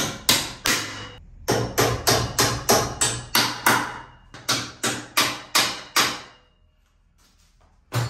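Claw hammer striking the head of a bolt, driving it through a golf cart brush guard bracket: a steady run of metal-on-metal blows about three a second, with a short pause about a second in, stopping about six seconds in. A single knock comes near the end.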